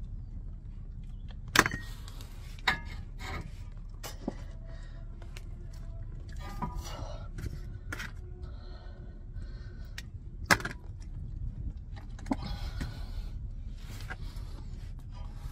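Sharp metallic clicks and clinks of a hand tool against the steering rack as a rubber rack-and-pinion bellows boot is worked into place, with rustling between them. About five separate clicks, the loudest about one and a half seconds in and again near ten and a half seconds, over a steady low background rumble.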